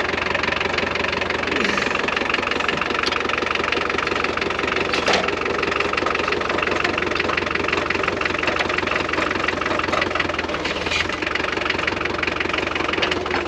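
Diesel engine of a McCormick D-430 tractor running steadily, with the potato planter behind it in use.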